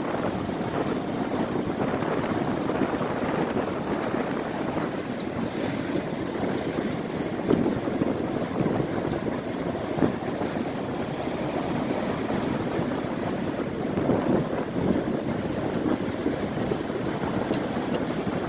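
Big surf pounding and rushing ashore in a steady roar that swells now and then as waves break, with wind buffeting the microphone.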